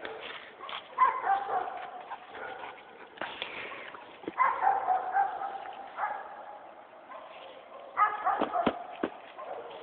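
A dog vocalising in play: three drawn-out calls that fall in pitch, about a second in, near the middle and near the end.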